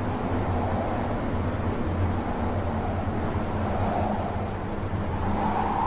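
A steady low hum with an even rushing noise above it, continuous and without sharp events.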